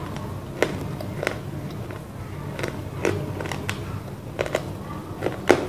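Close-miked crunching of roasted clay (mitti) being chewed: about eight sharp, crisp crunches at uneven intervals, the loudest near the end, over a low steady hum.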